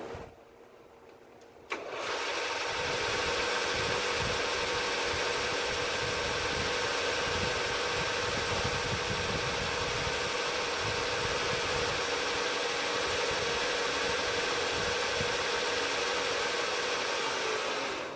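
Knee mill switched on with a click about two seconds in. Its spindle then runs steadily with a constant hum while the end mill takes a light ten-thousandths cut across an angled surface. It stops near the end.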